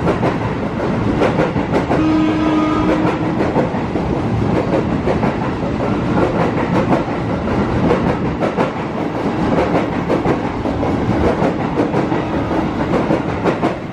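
Former JR 205-series electric commuter train running along the tracks, wheels clacking over the rail joints in a dense, steady rattle. A brief steady tone sounds about two seconds in.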